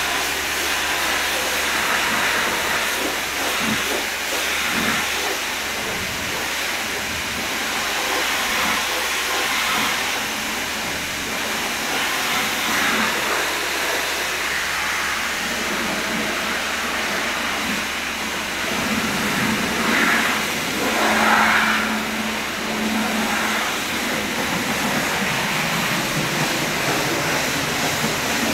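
High-pressure washer spraying a steady jet of water, rinsing foam off a car's body and wheels.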